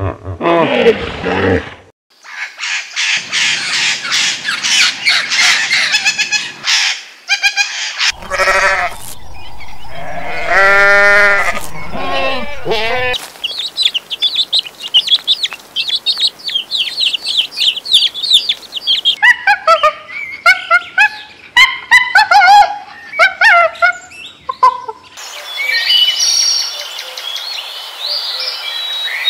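A run of different animal calls one after another, mostly birds and fowl. In the middle, young poultry chicks peep rapidly and high for several seconds, with other bird calls before and after.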